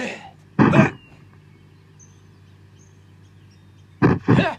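Martial-arts fight yells: a short sharp shout just under a second in, then two more quick cries about four seconds in, with a low steady hum between them.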